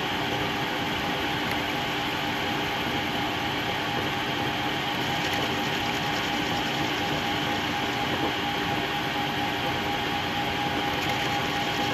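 Metal lathe running steadily with a constant hum and a couple of steady tones while its tool bit turns a rounded point on the end of a spinning quarter-inch rod.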